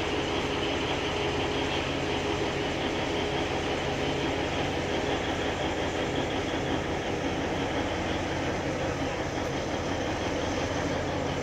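Diesel locomotive of the Alishan Forest Railway running steadily at idle, a constant engine hum with a held tone.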